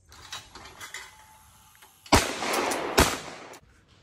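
Shotgun fired twice, a little under a second apart, shooting at thrown clay targets; each loud report trails off in an echo.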